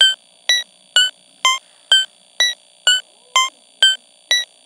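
A repeating run of short electronic synthesizer beeps, about two a second, stepping between different pitches over a faint steady electronic hum.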